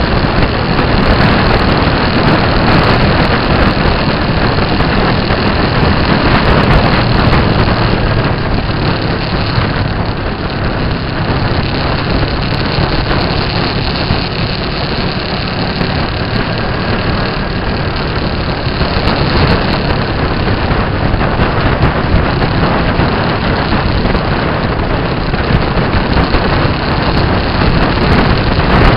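Motorcycle at road speed: a steady engine note under loud, constant wind rush on the microphone.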